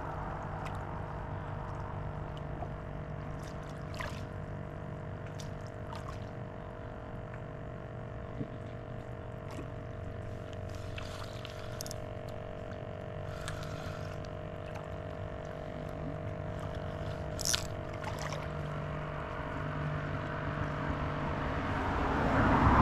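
Water trickling and pouring, with a steady low hum underneath and a few scattered short clicks, the sharpest about three-quarters of the way through.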